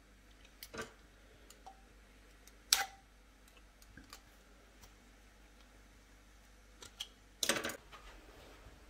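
Scattered light clicks and knocks of a spoon and jam jar against small ceramic serving bowls, with a sharp knock about three seconds in and a longer, louder clatter near the end.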